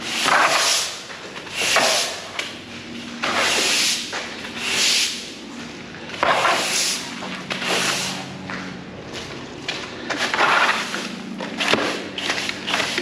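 Push broom sweeping wet mud and grit across a concrete car wash bay floor, in repeated scratchy strokes about one every second or so.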